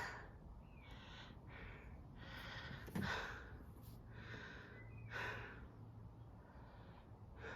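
A man breathing in short, noisy breaths close to the microphone, with a sharp knock about three seconds in.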